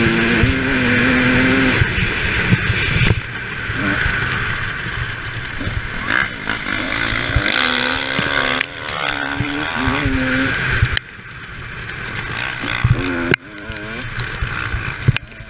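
Off-road motorcycle engine being ridden hard, its pitch rising and falling as the throttle is worked over rough ground. The throttle is eased off twice near the end.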